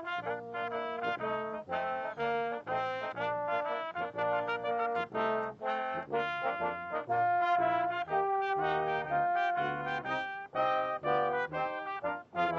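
Brass band music, trumpets and trombones playing a brisk tune of short notes, with a few longer held notes partway through.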